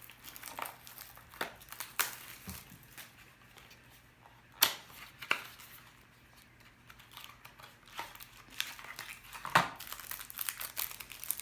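Plastic wrapper of a trading-card pack being torn open and crinkled by hand, in scattered sharp crackles with a quieter pause in the middle.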